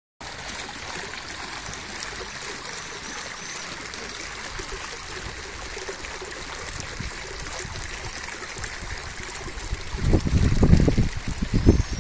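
Water of a tiered stone fountain flowing and trickling over its ledges into the basins, a steady rush. In the last two seconds loud, irregular low rumbles come over it.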